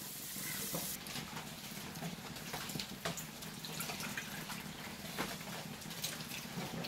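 Tamarind being squeezed by hand in water in a small steel bowl: irregular small wet squishes, drips and light clicks against the bowl, over a steady low hum.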